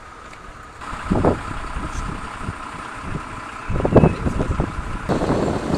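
Vehicle engines running at a street accident site, a steady rumble with a faint hum. There are two louder short bursts, about a second in and about four seconds in.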